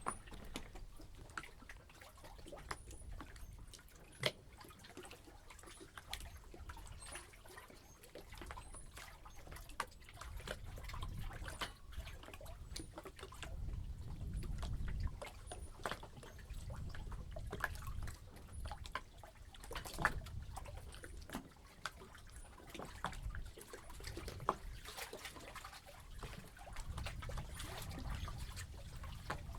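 Harbour water lapping and slapping, with many irregular small splashes and clicks over a low rumble that swells and fades.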